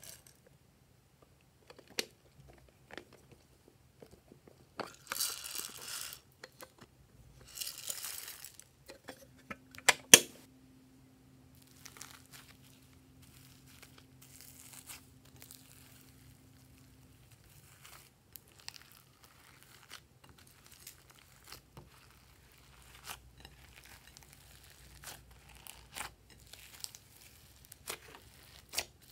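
Hands working foam clay, sprinkles and slime in a glass bowl: soft crinkling, crunching handling noises with scattered clicks. There are two short rustling hisses about five and eight seconds in, and a single sharp click about ten seconds in, the loudest sound.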